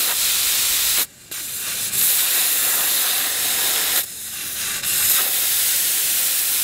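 Air hissing steadily out of a 4WD's tyre through a screw-on brass tyre deflator on the valve stem, letting the tyre pressure down for driving on sand. The hiss cuts out briefly about a second in and dips again around four seconds.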